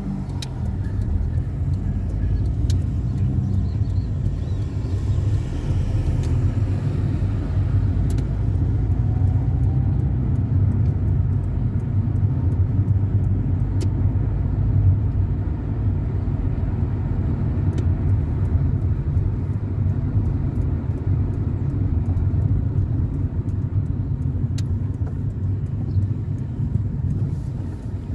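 A car driving along city streets: a steady low rumble of engine and road noise.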